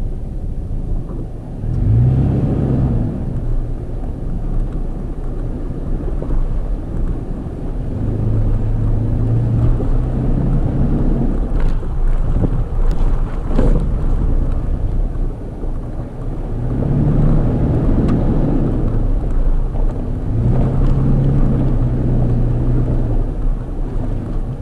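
Toyota FJ Cruiser's 4.0-litre V6 engine running at low trail speed, pulling harder in four spells as throttle is added. There are a few short knocks about halfway through.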